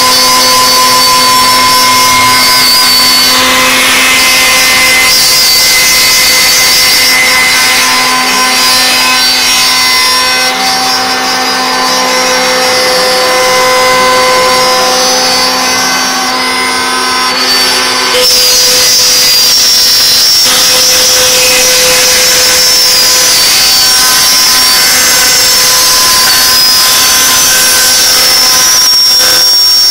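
CNC router spindle whining steadily as the bit cuts, with a gritty cutting noise under the whine; about 18 seconds in, the pitch of the whine changes.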